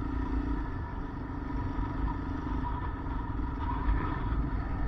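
Motorcycle engine running steadily, with a constant low drone and no change in pace.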